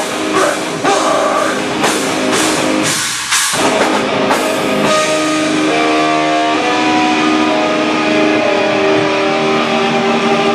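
Live heavy rock band playing loud distorted guitar and drums: crashing cymbals about twice a second for the first half, then a held guitar chord left ringing.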